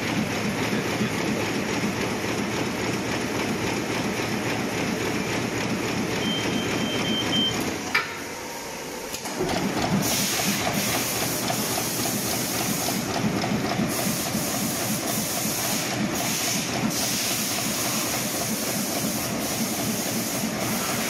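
Double-line side-welding and bottom-sealing plastic bag machine running: a steady mechanical clatter, with a high hiss coming and going in the second half. The noise drops briefly about eight seconds in.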